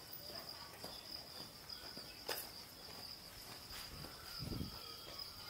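Insects chirring steadily in one high, even trill, with a sharp click about two seconds in and a low thump near the end.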